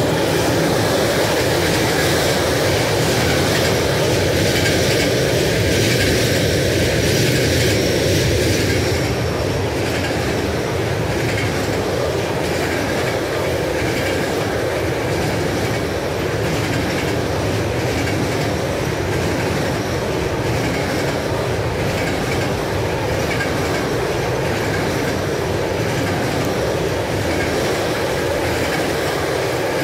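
Freight train's container flat wagons rolling past at speed: a steady, loud rush of steel wheels on the rails.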